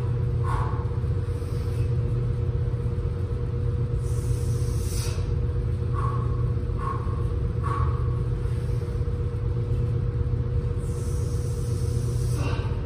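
Steady low background rumble with a constant hum, with a few short faint squeaks and two soft hisses.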